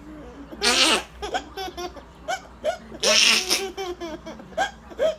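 Small children giggling and laughing, with two loud, hissy bursts of noise about half a second in and again about three seconds in, the children's new favourite noise.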